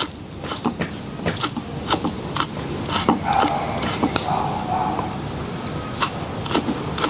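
Chef's knife chopping spring onions and shallots on a wooden chopping board: sharp knocks of the blade on the board about twice a second, with a pause of about two seconds after roughly four seconds, over a steady low background rumble.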